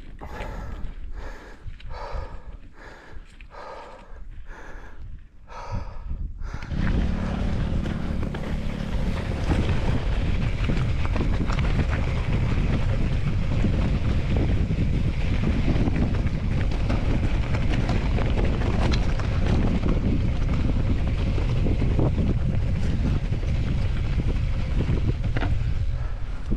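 Wind rushing and buffeting over the microphone, a loud steady rumble that starts about seven seconds in, as on a camera carried at speed on a mountain bike. Before it, a regular series of knocks, a little over one a second.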